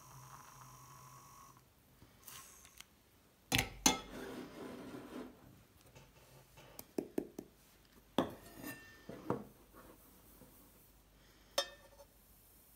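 A handheld battery-powered NanoFoamer milk frother whirring steadily in milk in a stainless steel pitcher, cutting off about a second and a half in. Then a string of separate metal knocks and clinks as the frother is set down and the steel milk pitchers are handled on the counter, the loudest a pair about two seconds after the frother stops.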